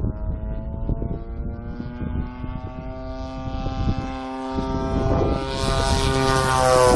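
Engine and propeller of a 35% scale Sbach radio-controlled aerobatic plane droning steadily overhead. It grows louder and rises in pitch near the end as the plane comes closer.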